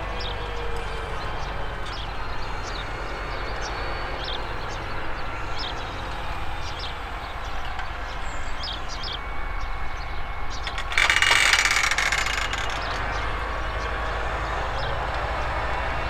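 Claas Axion 960 tractor's six-cylinder diesel engine running steadily under load, pulling an eight-furrow plough through the soil, with a low rumble and scattered short high ticks. About eleven seconds in, a loud hissing rush lasts about a second and a half.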